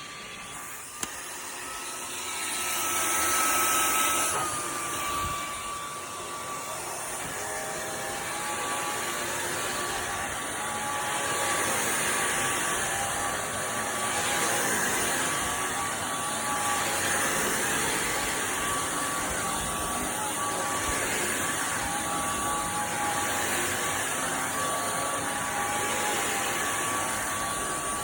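Simplicity A-Go-Go cordless stick vacuum running: a steady motor whine over the rush of air. After a click about a second in, the whine rises and grows louder, then drops back at about four seconds. It then runs on steadily, the air rush swelling and fading every few seconds.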